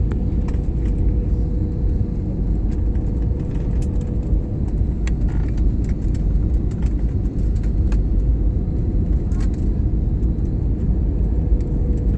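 Steady loud rumble of an airliner's engines and airflow heard inside the cabin in flight, with a faint steady hum.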